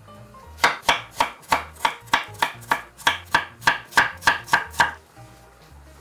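Chef's knife dicing firm produce into small cubes on an end-grain wooden cutting board: a steady run of about fifteen sharp knocks, about three a second. The run starts just over half a second in and stops about a second before the end.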